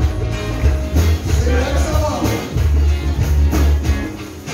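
Live gospel praise music: a band with a heavy bass line and a steady drum beat, with a voice singing over it.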